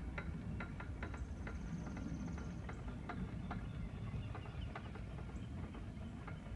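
Light clicks at uneven spacing, two or three a second, over a steady low rumble, with a faint high whine between about one and three seconds in.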